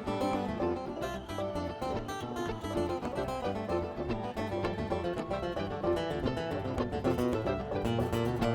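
Background music: upbeat acoustic guitar picking with a steady beat.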